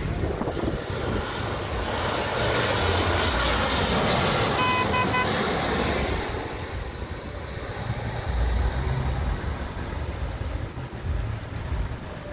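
Jet airliner on landing approach passing low overhead: its engine noise swells to a peak about five to six seconds in, then fades. A short pitched horn toot sounds near the peak, and wind buffets the microphone.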